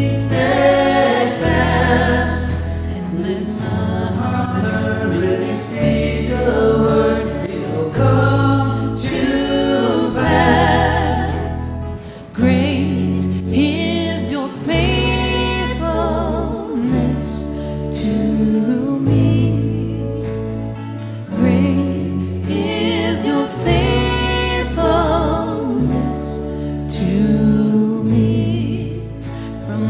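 Church worship band and singers performing a contemporary worship song. Sung vocal lines run over sustained bass notes that change every second or two.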